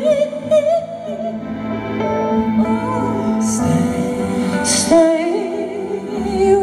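Live band playing a slow pop ballad, with a woman singing long held notes with vibrato over steady keyboard chords. Two brief bright crashes come about three and a half and five seconds in.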